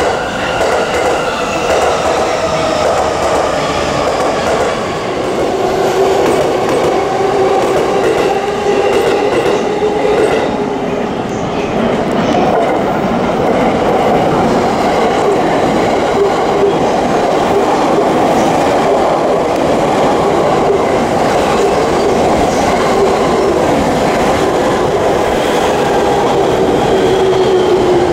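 JR East Shonan-liveried Tokaido Line suburban electric train running past, its traction motors whining in several steady pitches that slowly rise and fall over the noise of the wheels on the rails.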